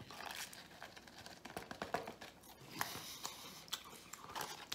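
Faint swallowing and small scattered clicks and rustles of a cup being drunk from and handled.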